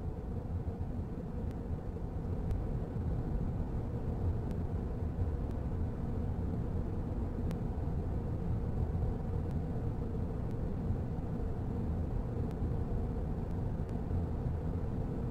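Steady low rumble from an anime soundtrack's sound design, with a few faint clicks now and then.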